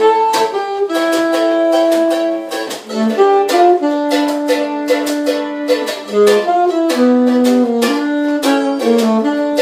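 Saxophone playing a slow melody of held notes over a strummed string accompaniment, in an instrumental passage of a live ballad performance.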